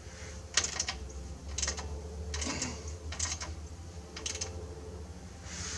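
Socket wrench ratchet clicking in short bursts about once a second as the light bar bracket bolts are tightened by hand.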